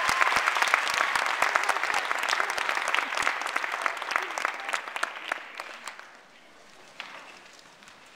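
Audience clapping, dense and loud at first, then thinning and dying away about six seconds in.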